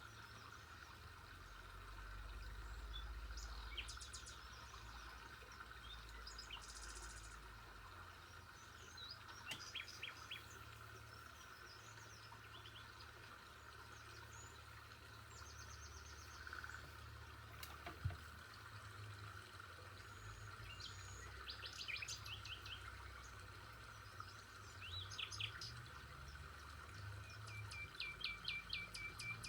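Birds chirping: short runs of quick repeated chirps and trills every few seconds, fairly faint, over a steady faint hum. A single sharp click comes about eighteen seconds in.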